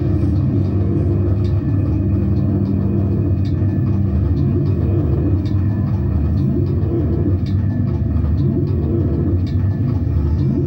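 Loud live band performance, heavily distorted and dominated by a dense low rumbling drone with a few held pitches, plus sharp hits every second or two.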